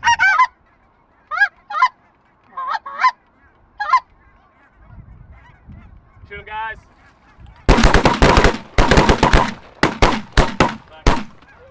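A flock of geese honking overhead, then a rapid volley of shotgun blasts from several hunters firing at once, starting about two-thirds of the way in.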